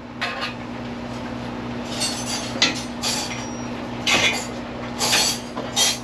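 Metal hardware clinking and clanking, about seven short knocks spread across a few seconds, from tie-down hooks and gear being handled in a race-car trailer, over a steady low hum.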